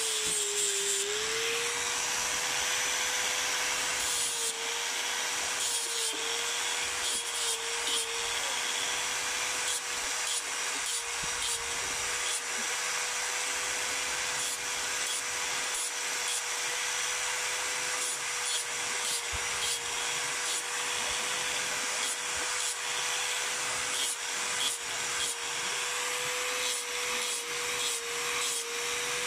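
Electric angle grinder running with a steady high hum, its pitch sagging briefly now and then as the disc is pressed into water buffalo horn. Rasping grinding noise rides over the hum while the horn is shaped into a karambit blade.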